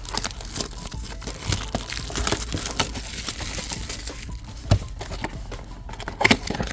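Packaging of a baseball-card mega box being torn open by hand: continuous crinkling and tearing with scattered sharp clicks, one strong snap about two thirds of the way in.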